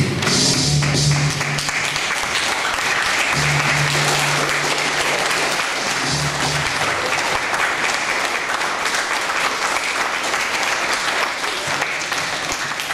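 Audience applauding, with music playing underneath for the first half or so and faintly again near the end.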